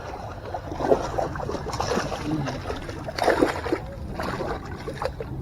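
A hooked bass splashing and thrashing at the water's surface while being fought in. The splashes come in irregular bursts, heaviest about a second in and again a little past the middle.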